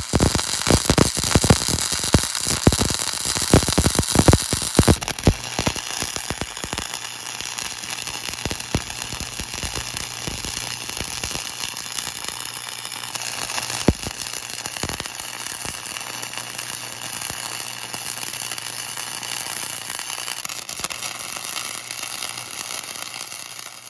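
Electric arc welding on a steel bumper: a continuous crackling sizzle from the arc. For about the first five seconds it is louder, with many sharp pops. After that it turns into a steadier, softer crackle with a low hum underneath.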